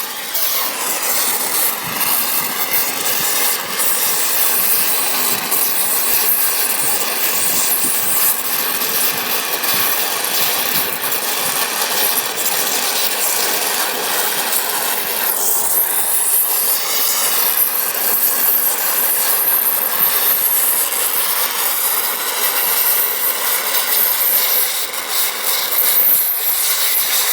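Multiplaz portable plasma torch running steadily: a loud, continuous hiss with a faint whine that shifts in pitch about halfway through.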